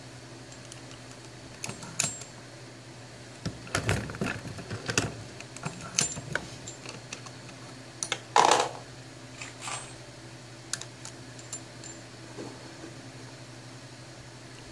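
Hornady Lock-N-Load AP progressive reloading press being worked to load .45 ACP: irregular small clicks and metal-on-metal clacks of brass and bullets being set on the shell plate and the press cycling, with one louder clank about eight and a half seconds in.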